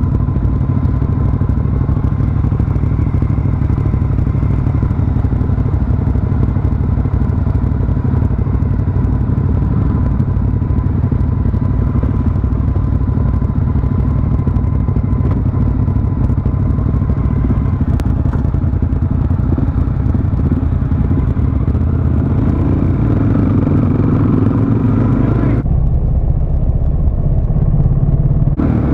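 Suzuki DR-Z400 supermoto's single-cylinder four-stroke engine idling at a standstill, with other motorcycles idling close by. Near the end the engine note rises as the bike pulls away.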